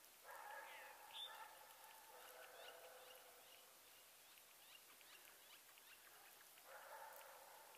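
Near silence: faint outdoor ambience while snow falls, with a faint distant pitched sound heard twice, once for about three seconds after the start and again near the end.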